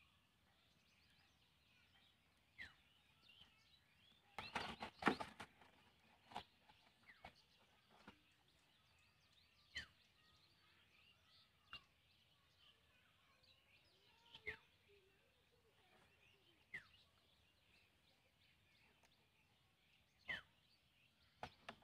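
Near silence with faint bird chirps, broken by scattered light clicks every couple of seconds and a short burst of crackling about four to five seconds in, from a plastic bottle being handled.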